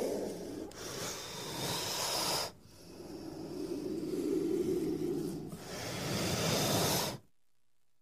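Snake hissing in several long, drawn-out breaths, each swelling louder, the last one cutting off suddenly about seven seconds in.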